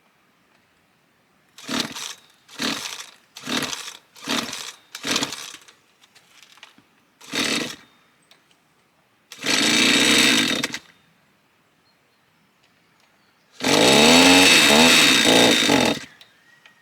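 Petrol strimmer being pull-started: six short pulls, each giving a brief cough. It catches for about a second about nine seconds in, then runs for about two seconds near the end with its revs rising before cutting out. This is a broken-down strimmer under repair, only just coming back to life.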